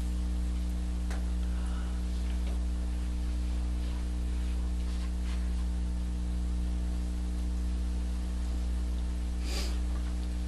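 Steady electrical mains hum with a stack of even overtones, with a few faint clicks and one short, sharper noise near the end.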